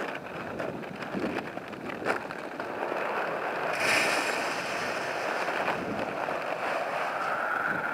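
Chicken feed pouring from a bag into a galvanized metal feeder: a steady rushing hiss of grain that swells about four seconds in, after a couple of knocks.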